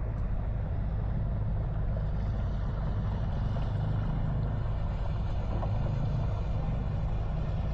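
Steady low rumble of a boat engine running, with no change in level.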